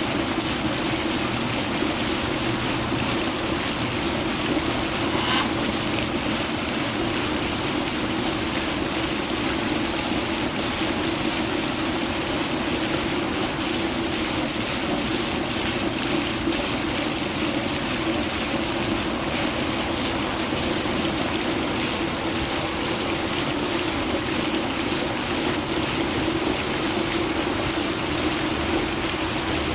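Steady rushing noise, like running water, with no pause or change, and a faint brief sound about five seconds in.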